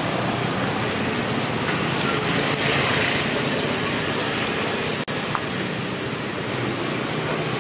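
Steady street noise of traffic, an even hiss-like roar with no single vehicle standing out; it drops out for an instant about five seconds in.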